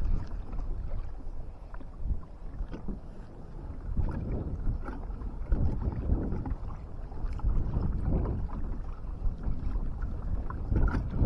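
Strong onshore wind buffeting the microphone in gusts, with water slapping against a fishing kayak's hull and a few light clicks from handling gear.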